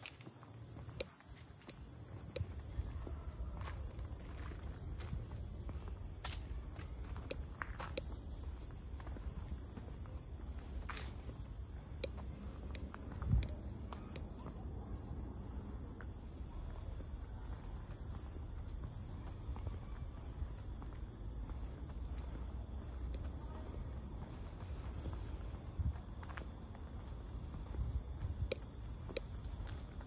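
Steady, high-pitched drone of a tropical insect chorus, with scattered footsteps and a louder knock about halfway through.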